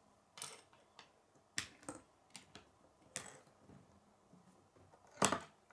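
Plastic K'nex rods and connectors clicking and snapping as they are fitted together by hand: a scattered series of sharp clicks, the loudest a little past five seconds in.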